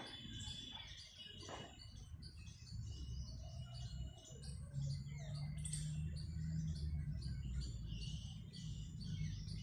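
Many small birds chirping and twittering together in quick, overlapping calls, over a steady low rumble.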